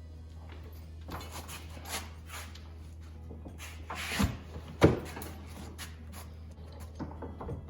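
Scattered clicks and knocks of a wrench or bar on the pinion nut of a Ford 8.8 differential while the crush sleeve is being tightened, with a sharp knock about five seconds in, over a steady low hum.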